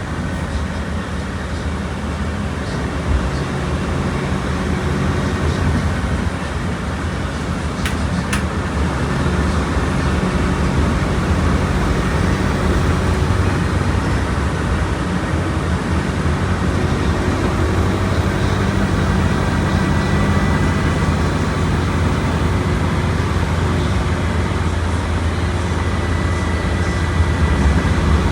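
Volkswagen Volksbus 17.230 Euro 6 bus's diesel engine running, a steady low drone that grows a little louder several seconds in. A short click about eight seconds in.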